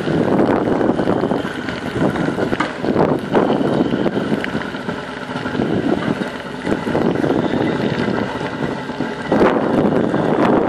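Strong wind buffeting the microphone in heavy rain: a dense, gusting noise that rises and falls, with a few knocks and a stronger gust near the end.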